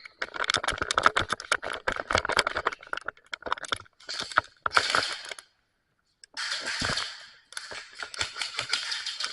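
Airsoft guns firing rapid strings of sharp clicking shots for the first few seconds. Then come several separate stretches of rushing noise, with a short silent gap between them.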